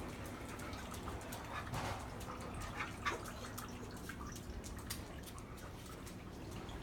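A dog whimpering faintly a few times in short, high whines, among scattered small clicks and taps.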